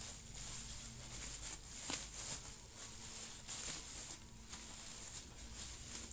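Plastic bubble wrap rustling and crinkling as it is handled and pulled off a camera, with irregular light crackles.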